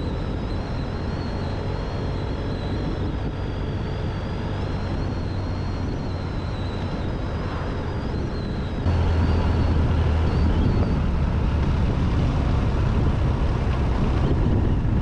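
Motorcycle riding along at road speed, engine running with rushing wind on the microphone. About nine seconds in the sound suddenly gets louder and heavier.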